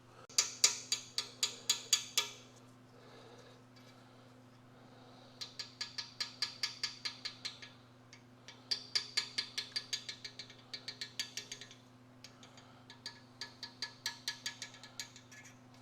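Rapid, evenly spaced metal clicks, about six a second, in four bursts of two to three seconds with short pauses between, as tools work a sheared-off bolt out without drilling. A faint steady hum lies underneath.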